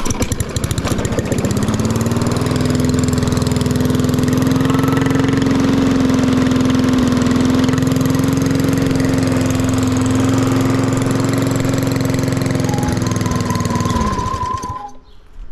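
Small lawn mower engine fitted with an aftermarket muffler, starting and rising over about two seconds to a steady high-speed run. It shuts off and winds down about fourteen seconds in.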